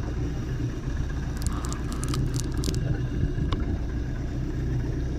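Boat engine running steadily with a low hum, with a few light clicks and scrapes from about a second and a half to three and a half seconds in.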